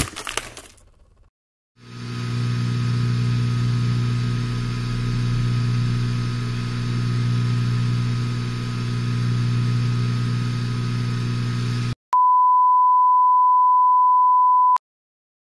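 Synthetic sound effects one after another: a crackling hit fading out in the first second, then a steady low hum with a thin high tone above it, swelling and easing slightly every couple of seconds for about ten seconds, then a pure steady beep of about three seconds that cuts off abruptly.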